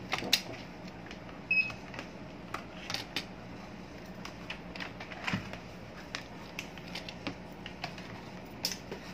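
Irregular clicks and knocks of hard plastic fan parts being handled as an electric fan motor with its blade is fitted back into the fan's plastic housing.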